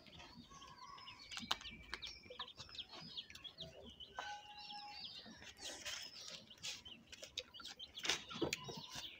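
Birds chirping faintly: many short, high calls overlapping one another, with a few soft clicks among them.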